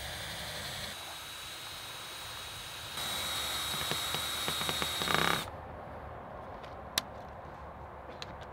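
Cordless drill running for about two and a half seconds as it drives a fastener through a metal wiggle-wire channel into a wooden frame, ending in a short louder burst. A single sharp click follows about two seconds later.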